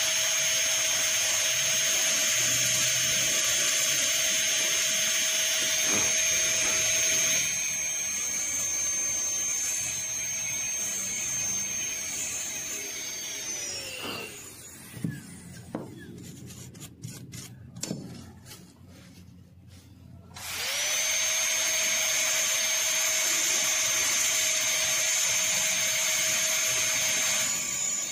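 High-speed air-turbine dental handpiece whining steadily as its bur cuts a cavity in a plastic model tooth. About halfway through it winds down, a few clicks follow, then it spins up again and cuts on.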